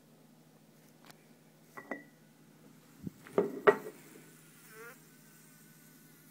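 House fly buzzing in short bursts, mixed with a few sharp taps. The loudest bursts come a little after three seconds in, and a brief wavering buzz follows about a second later.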